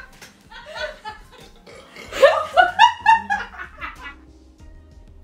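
A woman laughing, a quick run of loud laughs about two seconds in that dies away by about four seconds.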